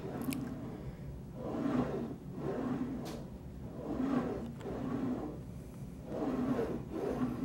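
Foot-plate carriage of a WhisperSLYDE sliding exercise trainer rolling out and back along its track in a steady rhythm, a pair of strokes about every two and a half seconds: repetitions of a lying hamstring exercise.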